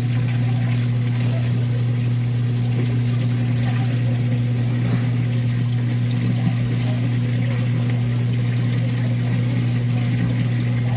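A steady low machine hum, a motor or pump, runs without a break under the sound of water pouring and trickling.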